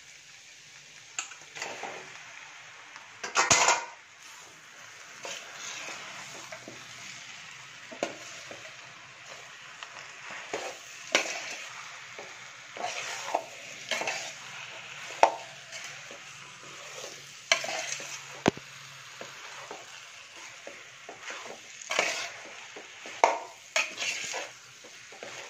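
Raw chicken pieces going into onion-and-spice masala frying in oil in a metal pot: a steady sizzle, with a slotted metal spoon scraping and clinking against the pot as it stirs. A loud clatter about three and a half seconds in.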